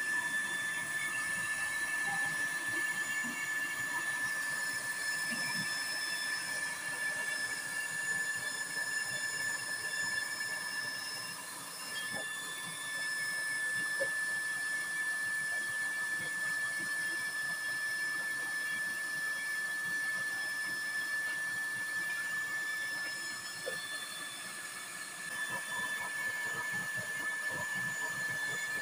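Used-oil burner stove running with a small single-fan electric blower forcing air into it: a steady high whine from the fan over the hiss of the forced-air flame.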